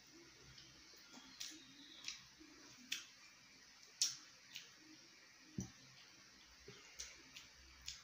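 Quiet eating sounds from people eating with their hands: scattered soft mouth clicks and smacks of chewing, and fingers picking at rice and pork, irregularly spaced about once a second.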